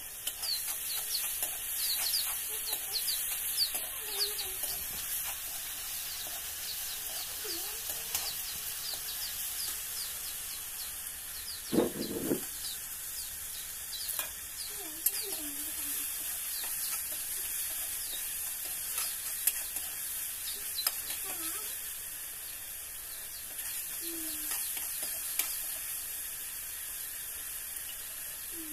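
Curry masala frying in oil in a metal kadai over a wood fire, sizzling steadily while a metal ladle stirs it, with frequent small scrapes and taps of the ladle on the pan. One louder knock comes about halfway through.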